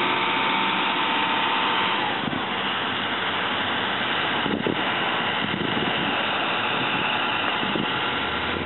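Engine of heavy construction machinery idling steadily, with a faint steady whine that stops about two seconds in.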